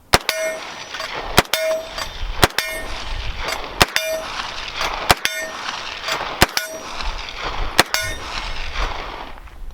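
About seven single shots from an unsuppressed HK MP5 firing 9mm, spaced a little over a second apart. Each shot is followed a moment later by the ringing ping of a steel target being hit, so the rounds are on target with the suppressor off.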